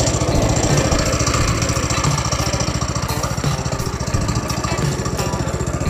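Small 212cc single-cylinder four-stroke go-kart engine idling steadily, shortly after a cold start, with an even, rapid low chugging of firing pulses.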